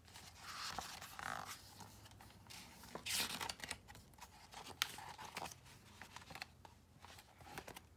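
Paper pages of a hardcover picture book rustling as hands handle and turn them, with several sharp paper clicks; the loudest rustle comes about three seconds in.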